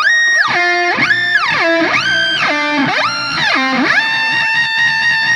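Electric guitar played through a Hotone Ampero's octave pitch-shift effect, its pitch swept up and down with the expression pedal. There are about four rising and falling glides, then a note held steady from about four seconds in.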